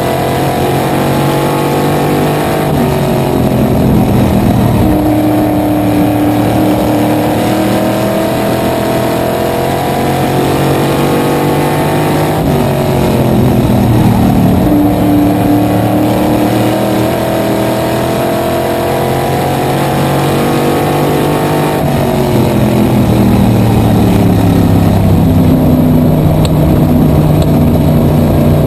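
Small-block V8 of a supermodified race car at racing speed, heard from the cockpit. The engine note drops and climbs again three times, about every ten seconds, as the car lifts off for the turns and accelerates out of them.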